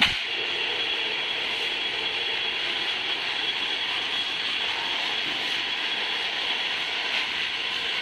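Steady industrial machinery noise: a continuous even hiss with a thin high whine running through it.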